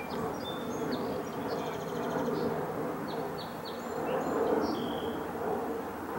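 Steady background noise in open parkland, with a small bird's short high chirps above it and a quick run of repeated notes about two seconds in.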